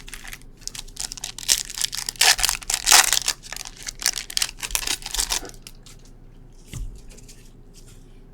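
Packaging of a sealed box of football trading cards being torn and crinkled open: a run of ripping and crackling for about five seconds, loudest in the middle, then a single light knock.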